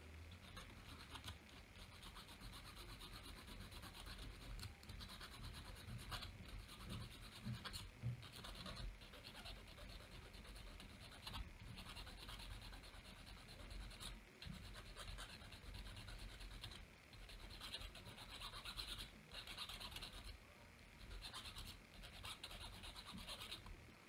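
Needle file scraping on a tiny buckle held in pliers: a run of quiet, uneven short rasping strokes as the buckle's corners are rounded off and it is thinned down.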